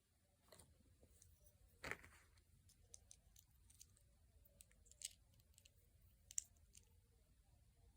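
Faint scattered clicks of small plastic Lego pieces being handled and pressed together, with one brief rustle about two seconds in.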